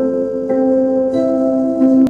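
Calm instrumental background music: held notes from a plucked or keyboard instrument, with new notes coming in about halfway through.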